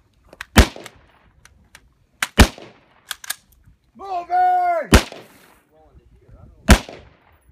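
AR-15 rifle fired four times in single, unhurried shots a second or two apart, with a few fainter sharp cracks between them. Just before the third shot a man's voice gives a long shout.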